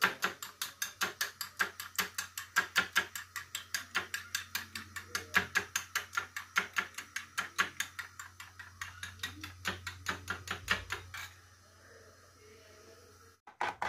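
Metal spoon beating raw eggs in a small glass bowl, clinking against the glass in a fast, even rhythm of about five strokes a second; the beating stops about three-quarters of the way through.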